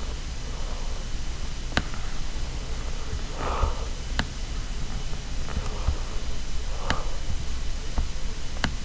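Computer mouse clicking sharply, four times a few seconds apart, over a low steady hum, with soft breathy puffs of breath close to the microphone about every three and a half seconds.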